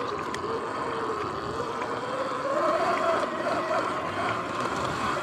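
Sur-Ron X electric dirt bike's motor and drivetrain whining as it rides over grass, the whine climbing in pitch about halfway through and dropping again as the speed changes, over a steady hiss of tyres and wind.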